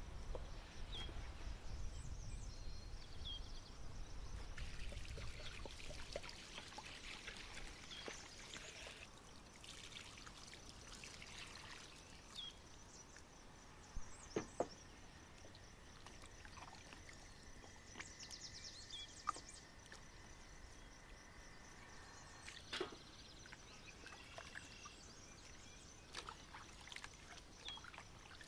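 Liquid pouring and trickling, with scattered sharp clicks and knocks and a few short high chirps.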